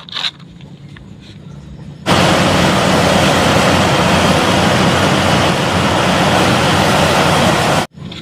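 Loud, harsh engine-like rumble of a heavy machine. It starts suddenly about two seconds in, runs steadily, and cuts off abruptly near the end.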